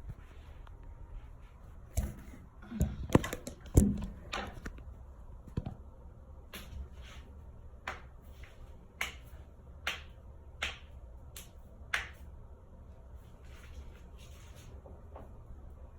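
Finger joints cracking: a cluster of loud, sharp pops, then about ten single pops at roughly one per second as the knuckles are cracked one after another.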